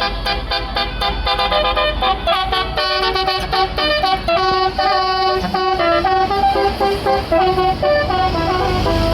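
Tour bus's Basuri musical air horn playing a quick tune of many short notes over the low running of the bus engine.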